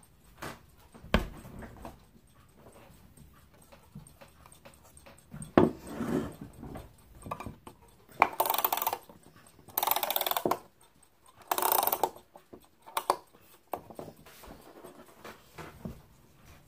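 Wooden mantel clock being wound by hand at its back: three short bursts of rapid ratchet clicking, each under a second, about a second and a half apart, after a couple of knocks from handling the case.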